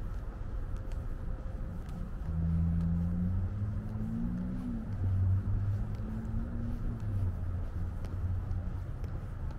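A motor vehicle's engine on the road alongside. A low hum comes in about two seconds in and rises in pitch twice as the vehicle accelerates, then fades near the end.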